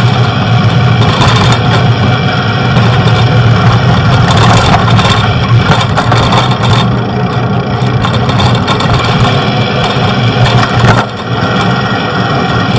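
Loud, steady road noise heard from a moving bicycle, with motor traffic running alongside.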